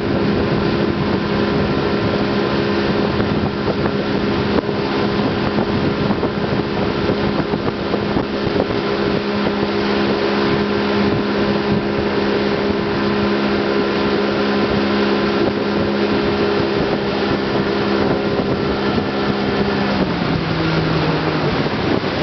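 Towboat engine running at a steady speed while pulling a wakeboarder, with wind rushing across the microphone. About two seconds before the end the engine's pitch drops as it is throttled back.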